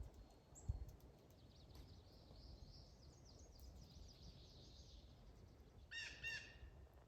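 Faint wild songbirds twittering, with a louder call of two notes about six seconds in.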